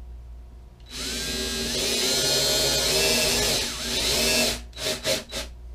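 Cordless drill boring into thin galvanized sheet steel (24 or 26 gauge): the motor whines and the bit grinds against the metal. It starts about a second in and runs steadily for about three and a half seconds, then comes a few short bursts near the end.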